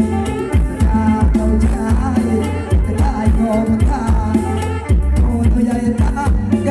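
Loud recorded music with heavy bass and a steady drum beat, played through a large outdoor PA sound system during a sound test.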